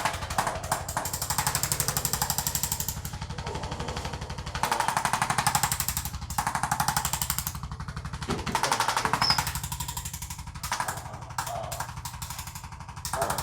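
Very fast, even mechanical hammering that runs on continuously, growing louder and softer every second or two.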